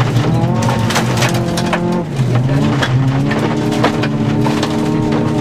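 Rally car engine heard from inside the cabin, driven hard on a gravel stage: the revs fall as the driver lifts about two seconds in, then climb again and hold high. Sharp clicks and knocks from gravel against the car run through it.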